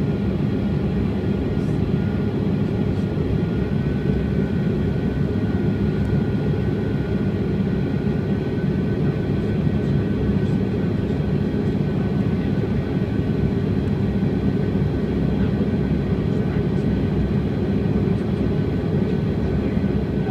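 Steady cabin noise of a Bombardier CRJ200 climbing after takeoff: the even rumble of its rear-mounted General Electric CF34 turbofans and the airflow, heard from inside the cabin. A faint thin whine sits over it for a few seconds near the start.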